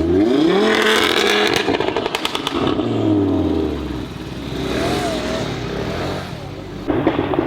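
Audi RS3's turbocharged five-cylinder engine accelerating hard with a straight-through downpipe, its pitch rising quickly, then a rapid string of exhaust crackles and pops. The engine note then falls away, and a second sudden loud burst of engine noise comes near the end.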